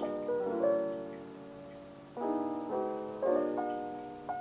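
Background lofi piano music: soft piano chords struck one after another, each left to ring and fade.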